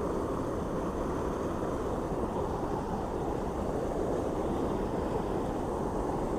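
Water pouring over a mill dam waterfall, a steady rushing noise.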